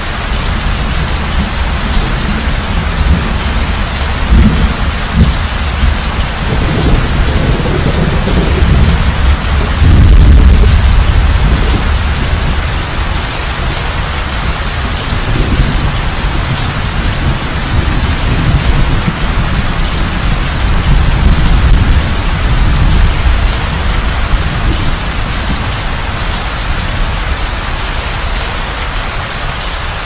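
Steady heavy rain falling, with thunder rumbling low underneath several times; the loudest rumble comes about a third of the way through.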